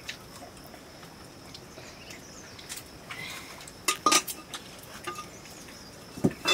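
Metal spoon clinking against a steel cooking pot and plates as rice is served, with a few short ringing clinks about four seconds in and again near the end.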